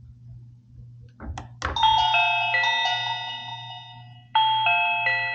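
Reolink plug-in doorbell chime ringing: a couple of short knocks about a second in, then a chime phrase of several ringing notes that fades, and a second phrase struck about four seconds in.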